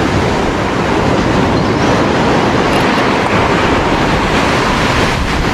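Steady rush of surf with wind buffeting the microphone.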